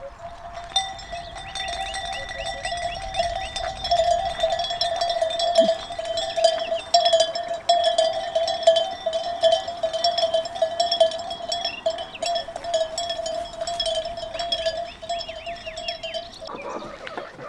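Background music holding one long steady note, with many light clicks over it. The note starts about a second in and cuts off sharply near the end.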